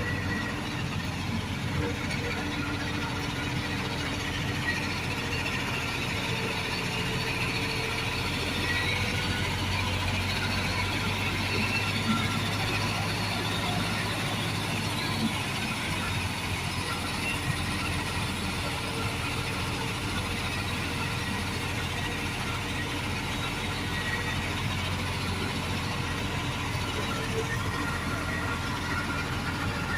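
Heavy construction machinery with its engine running steadily.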